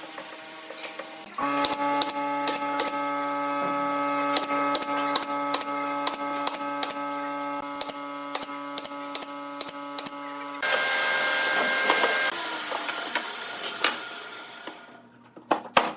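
A small electric motor in the workshop runs with a steady hum, starting about a second and a half in, while sharp clicks and taps sound over it. About ten seconds in it switches to a noisier, hissing whir for a few seconds, then fades to scattered clicks near the end.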